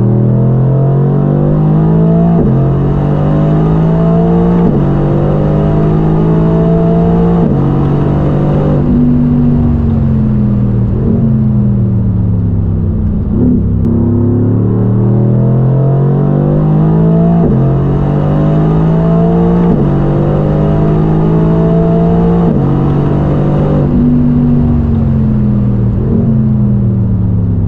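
Mercedes-AMG GT R's deep twin-turbo V8 pulling hard through the gears: the engine note climbs and drops back at each upshift. It falls away under deceleration about ten seconds in, then climbs through the gears again and falls once more near the end.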